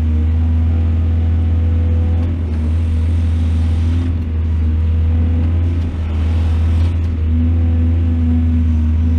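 Large excavator's diesel engine running steadily with a deep, constant drone, easing slightly a couple of times.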